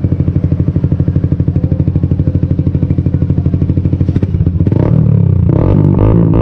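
Yamaha R15 V3's 155 cc single-cylinder engine idling with an even, rapid exhaust beat through a VMAX V74 aftermarket canister test-fitted by hand for a sound check. The engine is revved up in the last couple of seconds.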